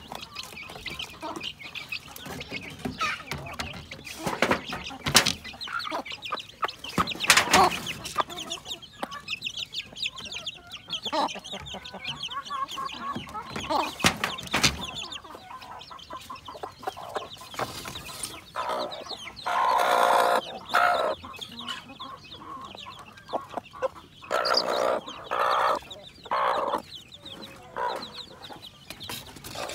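Native chickens and chicks clucking and calling around a grain feeder, with scattered sharp knocks. A longer, louder call comes about two-thirds of the way through, followed by several shorter calls.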